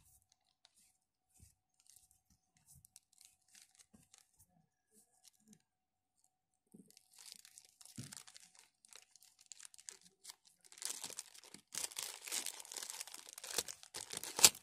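Small clear plastic packet being torn open and crinkled by hand. Faint handling ticks at first, then crinkling from about halfway that grows loudest near the end, with one sharp snap just before it ends.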